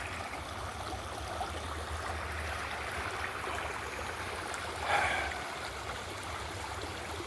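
Floodwater running steadily past a washed-out culvert crossing, a continuous rushing and gurgling, with a brief louder swell about five seconds in.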